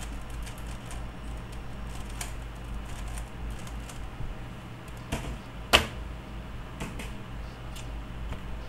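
Plastic 3x3x3 Rubik's cube turning in the hands, scattered light clicks of the layers, with one much louder sharp knock a little under six seconds in. A steady low hum runs underneath.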